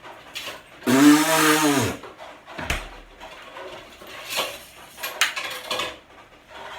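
A man makes one loud fake fart noise with his mouth, about a second long, its pitch rising then falling. Light clinks of dishes and utensils follow.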